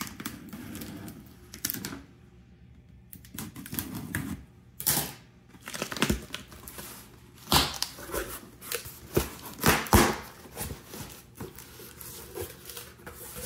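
Cardboard shipping box being handled and opened: scraping and rustling of cardboard and packing material, broken by irregular sharp clicks and knocks, the loudest around the middle of the stretch.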